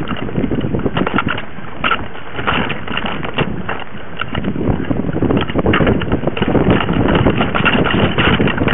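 Mountain bike riding over rough forest singletrack, heard through a camera mounted on the bike: a constant irregular rattle and knocking from the frame and mount as the tyres roll over dirt and roots, with wind on the microphone.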